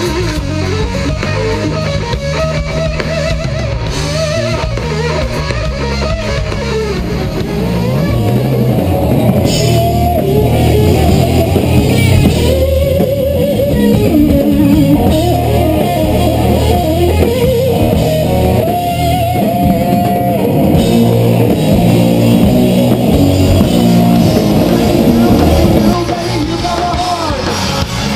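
Live psychedelic blues-rock trio playing loud: a Stratocaster electric guitar plays bending lead lines over bass guitar and a full drum kit. The band gets louder about eight seconds in.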